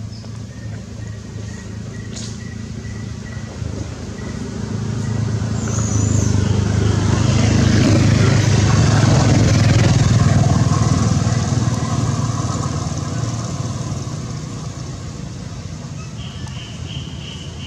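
A motor vehicle passes by: its low engine hum swells over several seconds, is loudest about halfway through, then fades away. Short high chirps sound near the end.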